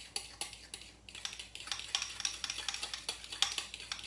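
A spoon stirring thick yogurt sauce in a small bowl, clicking and scraping against the bowl in quick strokes of about five a second.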